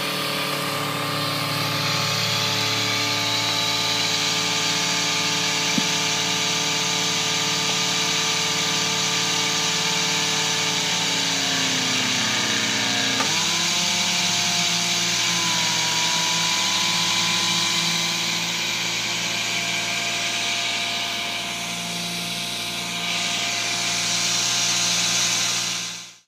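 The power pack driving a hydraulic rock splitter runs steadily as a machine hum made of several tones. About halfway through, the pitch slides down and settles at a new steady level.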